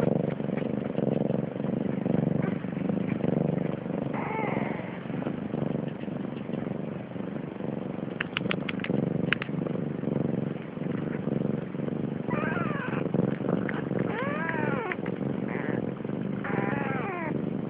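Siamese cat meowing several times in long, rising-and-falling calls, over a steady low rumble. A quick run of sharp clicks comes about 8 seconds in.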